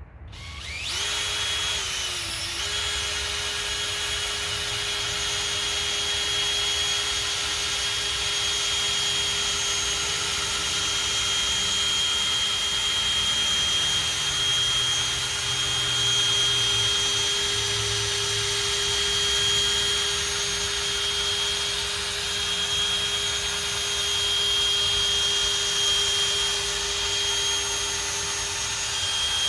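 Electric drill fitted with a polishing pad, spinning up just after the start and then running as a steady whine while it buffs polishing compound into a plastic headlight lens.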